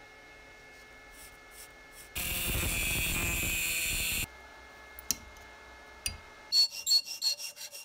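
Angle grinder cutting a small steel part clamped in a vise: about two seconds of loud, even, hissing grinding that cuts off suddenly. Near the end come a quick run of sharp metallic taps with a ringing tone as the cut piece is worked in the vise.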